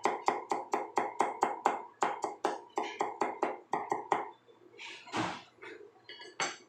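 Kitchen knife chopping garlic on a cutting board: a fast, even run of sharp knocks at about five a second that stops about four seconds in, followed by a few softer knocks.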